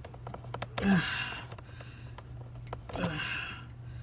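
A man grunts twice with short, strained breaths, about a second in and again about three seconds in, as he forces a tight rubber hose onto its fitting. Small handling clicks sound early on, over a steady low hum.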